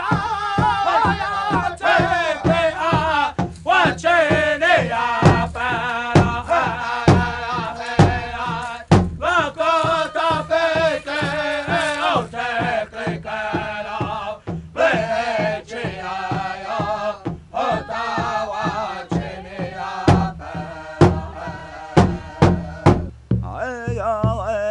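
Music: a man chanting in a wavering voice over drum beats.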